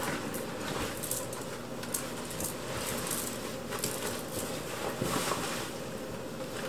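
Denim jacket rustling and brushing as it is pulled on and settled over the shoulders, in soft, irregular rustles.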